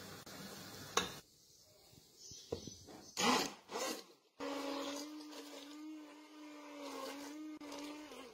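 Soup bubbling in a pot, a sharp click about a second in, then a few loud knocks and rustles of handling. A little over halfway through, a hand-held immersion blender starts and runs with a steady hum, pureeing the pumpkin soup in the pot.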